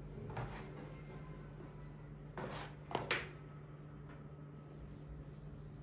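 Faint handling sounds: a plastic bench scraper cutting and pushing soft yeast dough on a tabletop, and the dough pieces being handled and set down, with two short soft scuffs about two and a half and three seconds in. A steady low hum runs underneath.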